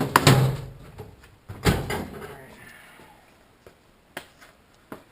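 Two loud clunks about a second and a half apart, followed by a few light clicks, as tools and parts are handled and set down.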